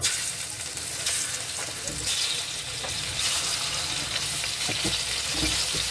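Hilsa fish steaks frying in hot oil in a kadai, a steady sizzle as more pieces are laid into the pan.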